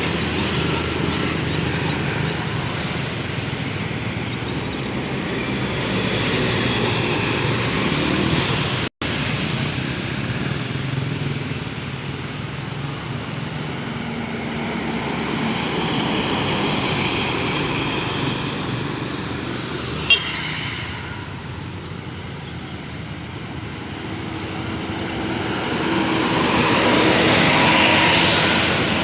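Road traffic: large bus engines running and passing, with vehicle horns tooting.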